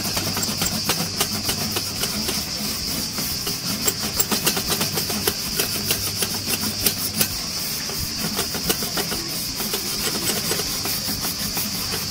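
Wire grill brush scrubbing back and forth over the hot slotted steel grate of a Skotti gas grill, a fast run of scratchy strokes as burnt-on grease is cleaned off, over a steady hiss.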